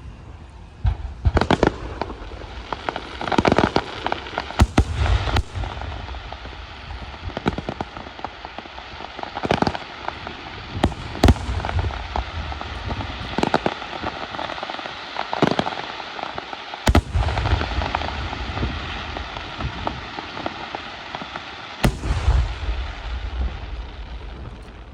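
Aerial fireworks display: shells bursting in sharp bangs every second or two over a continuous hiss of burning effects.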